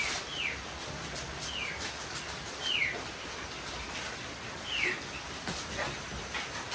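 A few short, high-pitched calls, each falling quickly in pitch, repeating at irregular intervals about five times, with faint light clicks in between.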